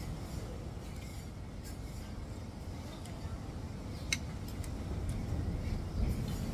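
A metal fork and spoon clink against a ceramic bowl, with a few sharp ticks, the clearest two about four seconds in, over a steady low background rumble.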